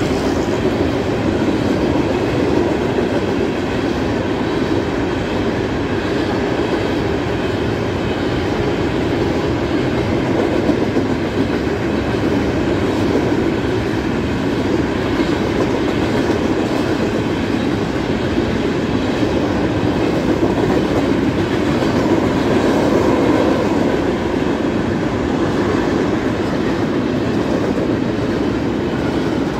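Freight train cars rolling past at speed: a steady rumble and clatter of steel wheels on rail from a string of ballast hopper cars, then tank cars near the end.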